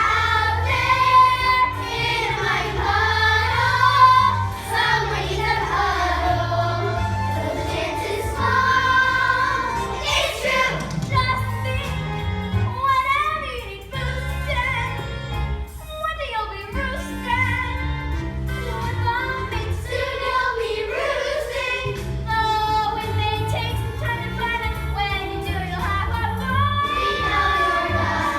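A cast of young singers singing a musical-theatre finale together over instrumental accompaniment with a steady, pulsing bass.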